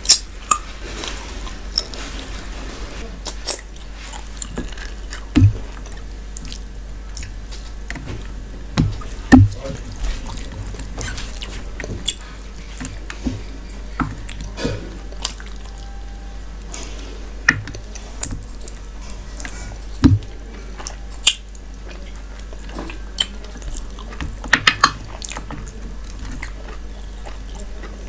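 Close-miked hand-eating sounds: fingers squelching and mixing rice with curry gravy on a plate, with chewing and mouth smacks. The sounds are irregular, short and sharp.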